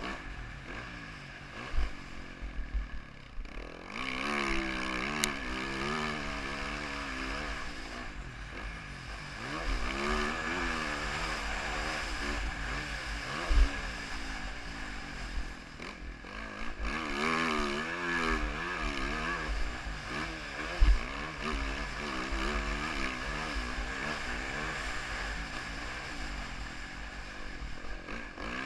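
2014 Yamaha YZ450F motocross bike's single-cylinder four-stroke engine revving up and falling back over and over as it is ridden round a motocross track, with a low rumble beneath and a few sharp thumps.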